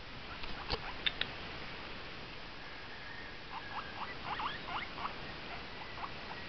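Guinea pig squeaking: a quick run of about ten short squeaks a few seconds in, after a few soft clicks.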